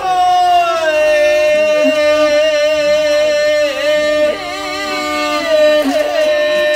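Mongolian long song (urtiin duu): a male voice holds long drawn-out notes with quick ornamented turns, accompanied by a bowed morin khuur (horsehead fiddle).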